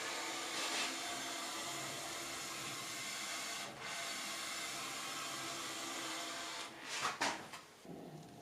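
Steel straight edge sliding over a scraped machine-tool guideway to spot it with pigment: a steady rubbing hiss, broken briefly about halfway through. It ends with a few short knocks about seven seconds in.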